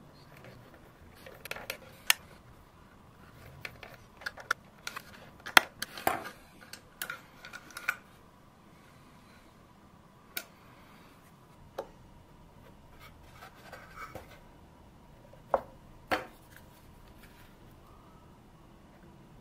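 Scattered small clicks, taps and light scrapes of hand work with a small screwdriver and a tiny brass hinge on a birch box, the screwdriver tip clicking against the hinge and screws as they are driven. The louder clicks cluster about five to eight seconds in, with two sharp knocks past the middle.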